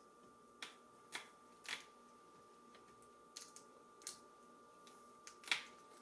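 Small sharp clicks and taps of hands working inside an opened Kindle Fire 7 tablet while fitting the new battery's connector, about seven in all, the loudest near the end. A faint steady high tone runs underneath.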